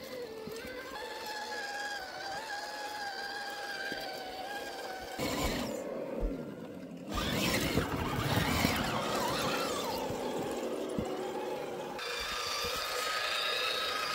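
Electric motors and gearboxes of 1/10-scale RC crawler trucks whining as they climb over rock and forest ground, the pitch shifting with the throttle. A louder, rougher stretch from about seven to ten seconds, and the sound changes abruptly a few times.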